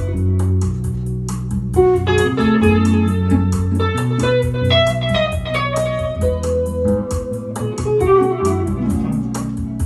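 Hollow-body archtop electric guitar, amplified, picking a single-note melody line over sustained low bass notes and a steady ticking beat.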